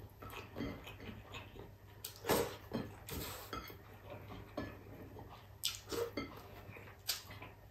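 Eating by hand from a ceramic plate: fingers pressing and scraping rice and broth across the plate, with scattered small clicks and chewing.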